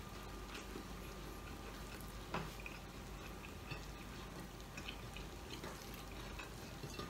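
Quiet eating sounds: chewing and fingers working rice and pork sisig on a plate, a scatter of small wet clicks over a faint steady background, with one sharper click about two and a half seconds in.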